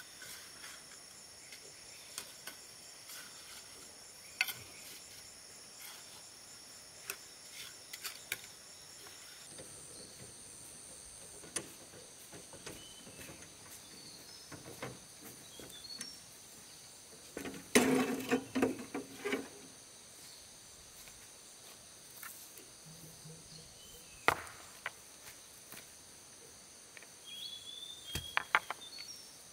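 Steady high chirring of insects, with scattered sharp knocks of stones being set down and tossed onto other stones. The loudest is a dense clatter of stones a little past halfway, with a few more knocks near the end.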